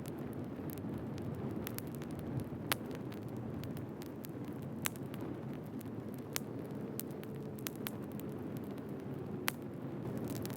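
Wood fire burning: a steady low rumble of flames with sharp crackles and pops at irregular intervals, a few of them louder.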